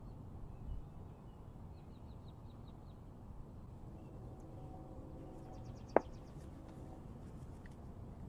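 Small birds singing short, rapid trills over a low steady background, with one sharp click about six seconds in, the loudest sound.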